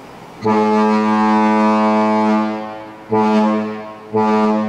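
Lake freighter ALGOMA TRANSPORT's ship's horn sounding a captain's salute: one long, deep blast followed by two short blasts.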